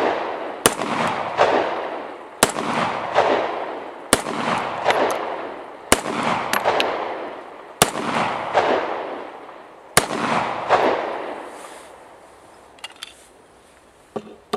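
Star 9 mm semi-automatic pistol, a 1911-pattern clone, firing six single shots of 115-grain CCI Blazer 9 mm Luger about two seconds apart. The ammunition cycles the pistol without trouble. Each shot is followed by a long echo trailing off, and a few small metallic clicks of gun handling come near the end.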